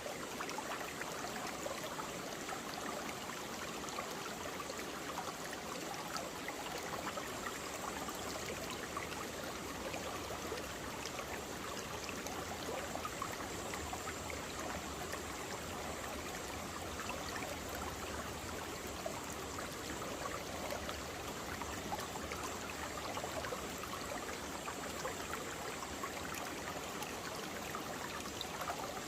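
Mountain valley stream babbling steadily over rocks, a continuous rush of water with fine splashing detail.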